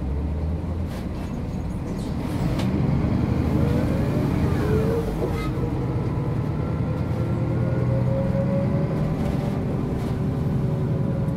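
MAN NG 262 articulated bus running under way. The engine drone grows louder about two and a half seconds in as the bus accelerates, with whining tones gliding in pitch, then settles into a steady drone.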